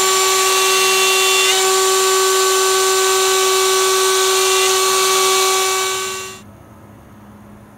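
CNC router spindle running at high speed with its bit cutting a mortise into a wooden board: a loud, steady whine over a hiss. The sound cuts off suddenly about six seconds in.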